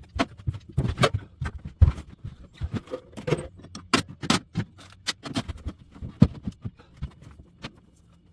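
Irregular clunks, knocks and rattles of the mini bike, tools and parts being moved around and set down in a small workshop, stopping shortly before the end.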